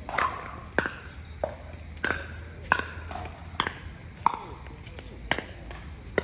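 Pickleball rally: about nine sharp pocks of paddles hitting the plastic ball and the ball bouncing on the court, coming unevenly every half second to a second.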